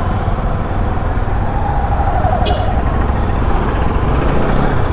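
Motorcycle engine running as the bike rides slowly through traffic, under a steady low rumble of wind and road noise.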